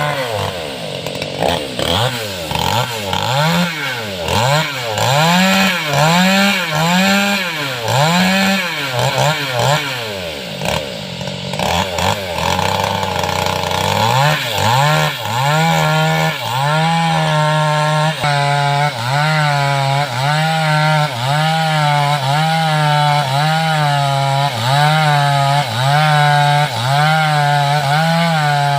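Home-built two-stroke chainsaw cutting wood, its engine speed rising and falling over and over in a steady rhythm.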